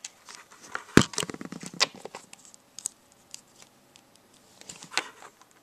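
Handling noise: fingers and small plastic toy figures rubbing and clicking close to the microphone, a scatter of sharp clicks and short rustles, the loudest about a second in.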